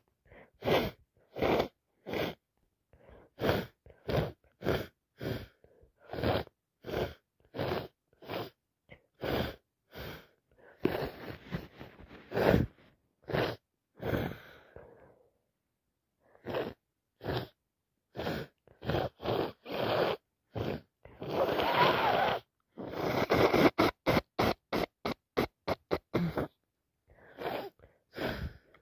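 A person with a cold sniffing repeatedly, in short sharp sniffs about one or two a second. There are a couple of longer, louder nasal bursts: one around the middle and the loudest about three-quarters of the way through, followed by a quick run of sniffs.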